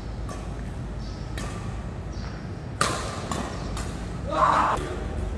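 Badminton rally: sharp racket strikes on a shuttlecock, several in quick succession, the loudest a little under three seconds in, echoing in a large hall. A short squeal follows about four and a half seconds in.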